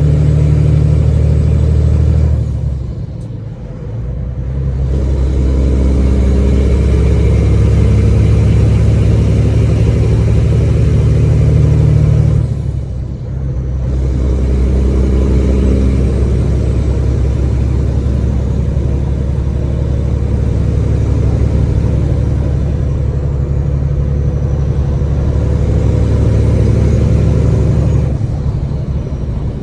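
Caterpillar diesel engine of a semi truck heard from inside the cab, running under load with a deep, steady drone. The engine drops off briefly twice, about three seconds in and again around thirteen seconds, and builds back up each time as gears are shifted.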